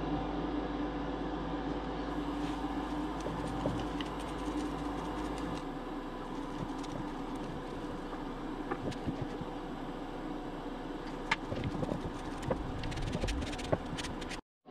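A steady mechanical hum, with scattered light clicks and knocks over the last few seconds.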